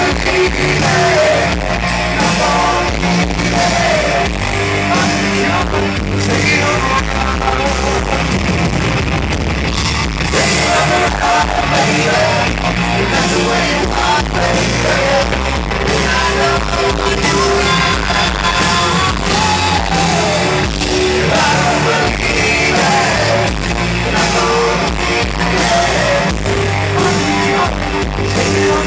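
Live rock band playing loudly, with distorted electric guitar, drums, bass and a singing voice, heard through the room.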